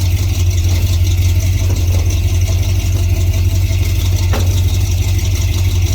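Engine of a 1950 GMC pickup truck running steadily with a low drone, with a single brief click a little past the middle.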